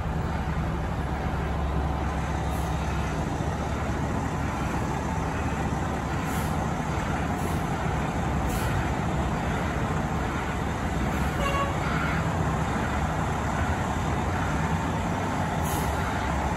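Fire engine's diesel engine running at low speed as the truck manoeuvres, a steady low rumble throughout, with a few short hisses.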